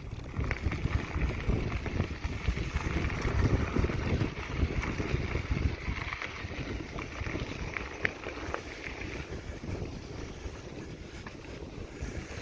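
Wind rumbling on the microphone over the crunch of knobby mountain-bike tires rolling on crushed limestone, on a downhill stretch.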